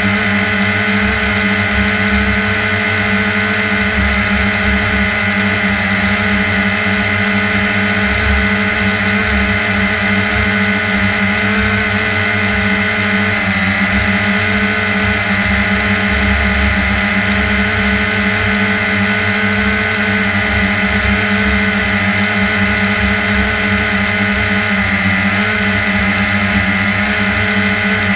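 Quadcopter drone's motors and propellers running at a steady hover-to-cruise speed, a loud even buzz with a high whine on top.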